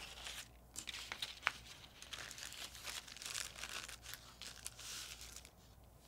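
Faint, irregular crinkling of a plastic zip-top bag and construction paper as they are handled and pressed flat on a table, with a few small clicks.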